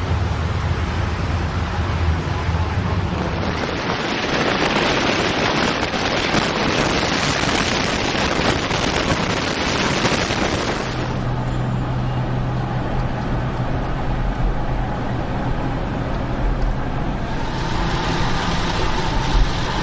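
Cars driving past one after another: a low, steady engine hum, with two long swells of rushing road noise as vehicles go by close, one from about four seconds in and another near the end.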